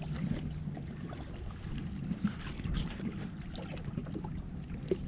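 Jet ski engine running on the water, with a low steady hum in the first second, then water splashing and rushing.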